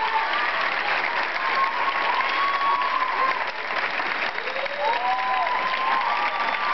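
Theatre audience applauding steadily, with several calls rising and falling in pitch over the clapping.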